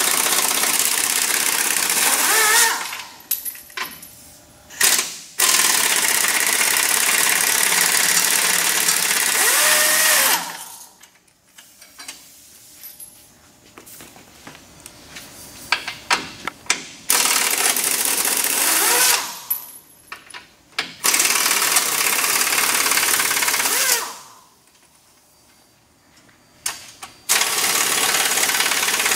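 Air-powered wrench running in about five runs of two to five seconds each, with a loud hiss, spinning out the truck's bumper mounting bolts. There are short pauses and a few clicks between the runs.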